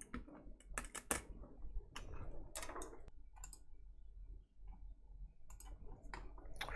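Faint, scattered clicks and taps of small parts and tools being handled on a repair bench, as a test screen and power leads are fitted to a phone logic board.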